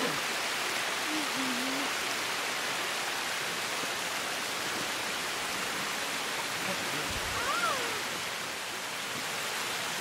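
Steady rushing of running water, with a brief low thump about seven seconds in.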